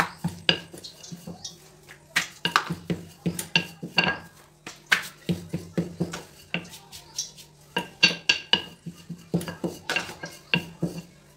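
Wooden rolling pin rolling out wheat dough into a chapati on a counter, with frequent sharp irregular knocks and clicks, about two to three a second, as the pin strikes and rolls on the counter.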